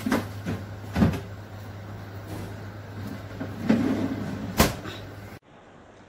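Plastic food containers knocking as they are handled in a refrigerator's bottom freezer drawer. The drawer then shuts with a sharp thump a little before the end, over a steady low hum that stops abruptly.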